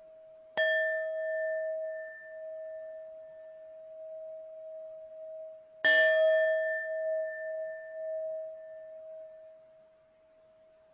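Tibetan singing bowl struck twice, about five seconds apart, each strike ringing on with shimmering overtones and slowly fading over a steady, sustained bowl tone.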